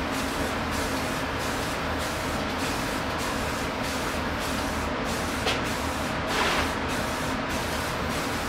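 Steady hissing background noise with a low hum, broken by two short hisses of an aerosol spray-paint can, a brief one about five and a half seconds in and a slightly longer one about a second later.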